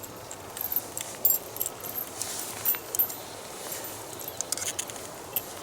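Light metallic clinks and jangles of an army camping pot being hung on a hanger over a campfire, with scattered short ticks over a steady low background.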